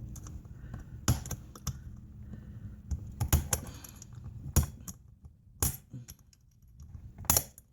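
Irregular metallic clicks and clinks of a small Allen key and screws against a car amplifier's metal chassis while it is being taken apart, about eight to ten sharp taps spaced unevenly.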